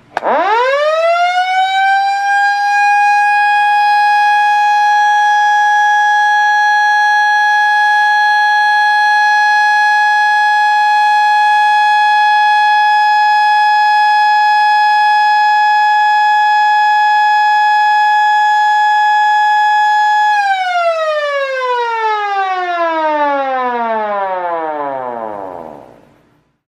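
Federal Signal Model A electromechanical siren sounding a steady alert blast. It winds up to pitch within about a second, holds one steady high tone for about twenty seconds, then is switched off and winds down in a long falling pitch until it stops.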